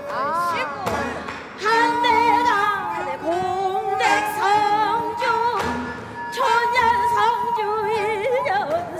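A woman singing a Namdo minyo, a southern Korean folk song, with wide, shaking vibrato and sliding pitch. A Korean traditional ensemble accompanies her, with a few drum strokes.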